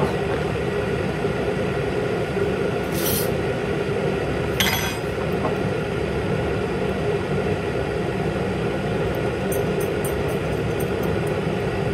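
Light clinks of small glass dropper bottles and pipettes being handled, twice around three and five seconds in and as faint ticks near the end, over a steady rushing background noise.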